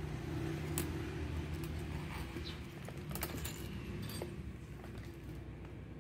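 Small metal strap hardware on a sling bag, a slider buckle and snap hooks, clicking and clinking in short light taps as the bag and strap are handled and set down, over a low steady background hum.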